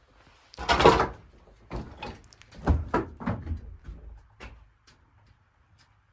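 A loud scrape about half a second in, then a run of knocks and clatters over the next few seconds, dying away near the end.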